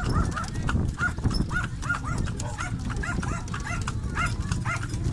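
Horse-drawn carriage rolling along a concrete street: steady low rumble of wheels and hooves, overlaid by a rapid run of short, high chirping or yapping calls, about three a second.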